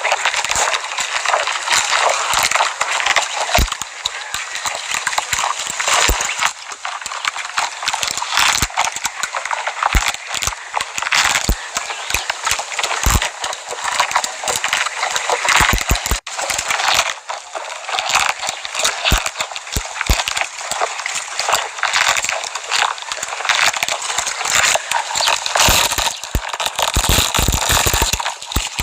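Camel chewing cactus: dense, irregular crunching and crackling that goes on without a break.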